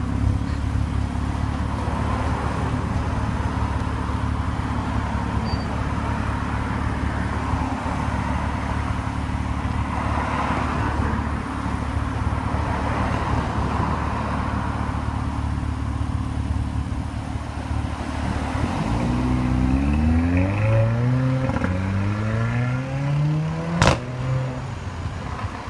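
Mercedes-AMG A45's turbocharged four-cylinder engine idling steadily, then accelerating hard from about 19 s in, its pitch climbing and dropping several times through the gear changes. A single sharp crack comes near the end, the loudest moment.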